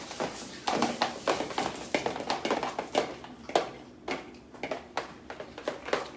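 Irregular taps and clicks of spoons against plastic cups as slime is stirred.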